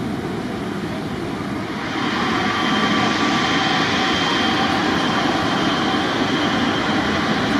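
Jet airliner's engines running, growing louder about two seconds in, with a steady high whine over the broad engine noise.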